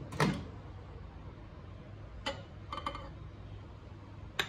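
Microwave oven door pulled open by its handle, the latch releasing with a loud clunk. A few light clinks follow as a ceramic plate is lifted off the glass turntable, then one sharp clink near the end.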